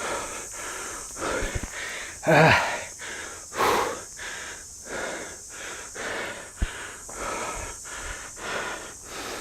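A hiker panting heavily after a steep uphill climb, quick rhythmic breaths about one and a half a second, with two louder gasps, one of them voiced, about two and four seconds in.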